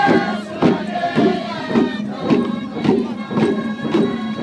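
A group of Siassi dancers singing a traditional song in unison over a steady beat of about two strikes a second.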